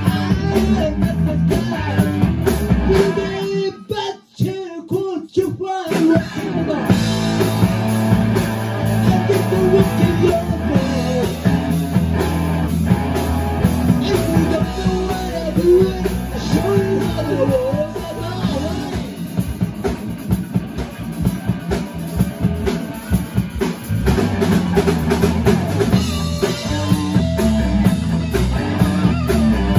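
Live rock band playing: two electric guitars, electric bass and drum kit, with a male lead vocal. About four seconds in the band drops to a brief stop-time break of a few hits, then comes back in full.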